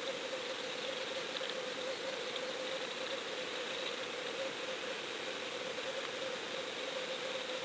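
Steady underwater hiss with a constant hum, as picked up by a GoFish Cam sealed in its housing on a fishing line deep underwater.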